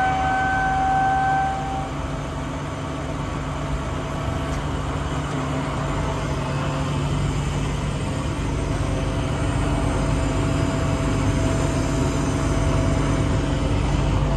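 Diesel engine of a 2012 International truck running steadily at idle, with a high whine over it that stops about two seconds in.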